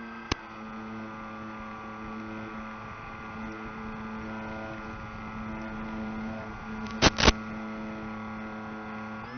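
Steady motor drone of a battery-electric FPV aircraft in flight, picked up by its onboard recording, holding one pitch with a small shift near the start. A few sharp clicks come about seven seconds in.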